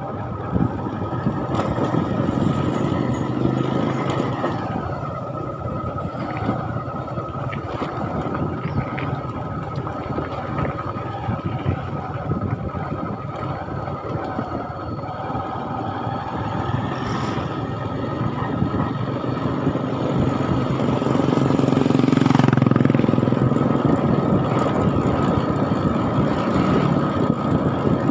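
A moving road vehicle on a rough road: steady engine and tyre noise, growing louder for a few seconds about twenty seconds in.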